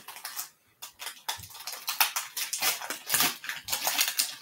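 Pokémon trading cards and their foil booster pack wrapper being handled: a dense run of crinkling, flicking and sliding sounds.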